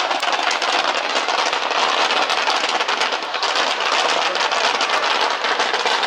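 Dense, continuous crackling of fireworks: countless tiny pops running together into a steady hiss-like crackle.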